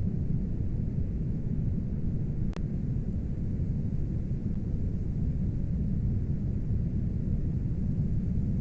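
Steady low rumble of strong storm wind, with a single sharp click about two and a half seconds in.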